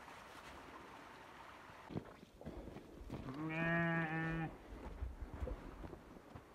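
A sheep gives one long bleat at a steady pitch, about three seconds in. Faint scattered crunches and clicks of footsteps on dry leaves and rock come before and after it.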